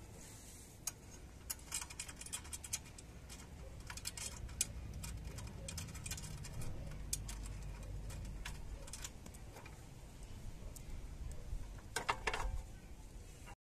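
Small clicks and metal taps from the front transport wheel's steel bracket of a mini tiller being handled at its mounting, with a denser burst of rattling clicks near the end.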